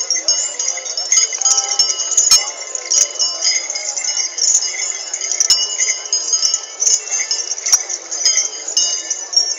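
Metal bells hung on processional elephants jingling and clanking irregularly as the elephants walk, many bells ringing at once, with voices in the background.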